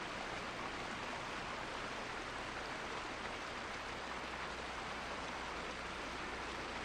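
Steady, even rush of running water, like a stream flowing over rocks.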